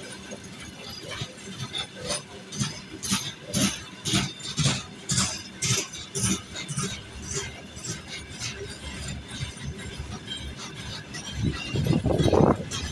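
Freight train rolling slowly onto a siding, its wagons and wheels giving irregular metallic clinks and knocks that grow louder and closer together near the end.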